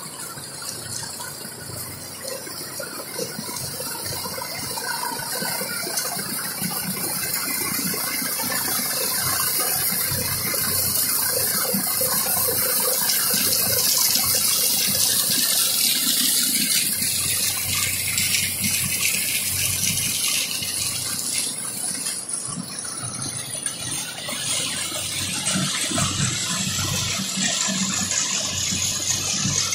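Crushed stone pouring off the stacking conveyors of a running McCloskey screening plant onto stockpiles: a steady rushing, rattling hiss over the machine's running, growing louder over the first ten seconds or so and then holding.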